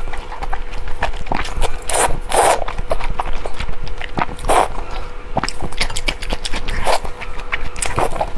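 Close-miked eating sounds of spicy sauced food: wet chewing, lip smacks and sharp clicks, with several longer slurps about two, four and a half and seven seconds in.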